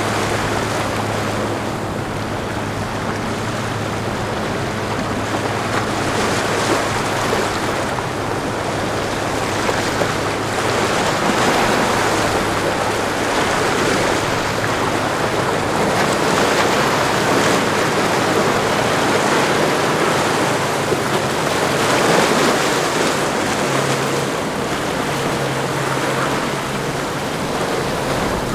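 Chris-Craft Catalina 29 center-console boat running through rough inlet chop: a steady wash of rushing and breaking waves that swells and eases, with the low, steady hum of its outboard engines underneath, plainest at the start and again near the end.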